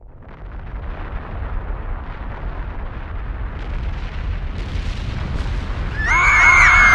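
Volcanic eruption rumble sound effect: a deep, noisy rumble that builds in loudness, with a few sharp cracks. About six seconds in, high wailing cries come in over it.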